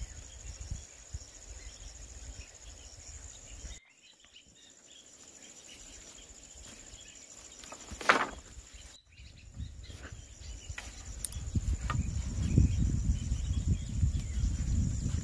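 Outdoor garden ambience dominated by a steady high-pitched insect drone, like crickets. About eight seconds in comes a brief sharp rustling noise, and low rumbling, rustling noise swells over the last few seconds.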